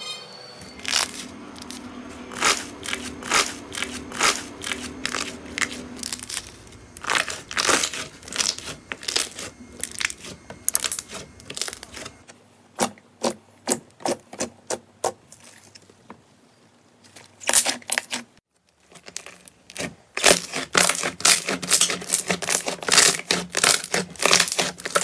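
Slime being pressed, stretched and kneaded by hand, giving rapid runs of sharp pops and crackles as trapped air bursts. The popping eases off for a few seconds around the middle and comes back dense and loud near the end.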